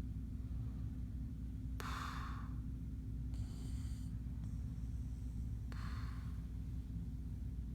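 Someone snoring in sleep: noisy breaths about four seconds apart, with a fainter hiss between them, over a steady low hum.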